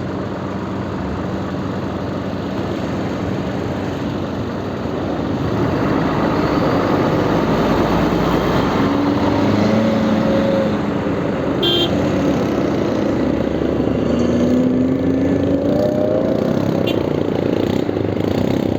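Vespa scooter engine running under way with road and wind noise; the engine note swells about five seconds in and rises and falls in pitch a couple of times.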